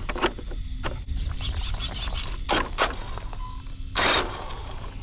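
Plastic body shell of an RC truck being pressed onto its chassis by hand: a run of scraping and rubbing with several sharp clicks and knocks, and a short louder rustle about four seconds in.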